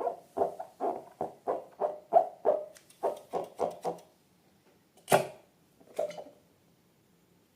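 Slime being squeezed and worked by hand, giving a quick run of wet, clicky pops from trapped air, about three or four a second. The pops stop after about four seconds, then come back as one louder sharp pop and a weaker one a second later.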